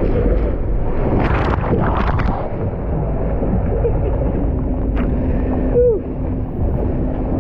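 Steady wind buffeting the microphone, with a few short noisy bursts between one and two and a half seconds in.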